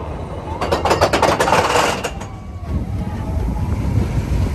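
Steel roller coaster train running along its track: a steady low rumble, with a loud rattling rush of noise from about half a second to two seconds in.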